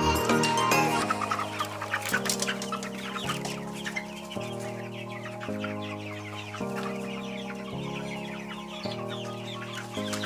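Chickens clucking over background music of held chords that change about once a second.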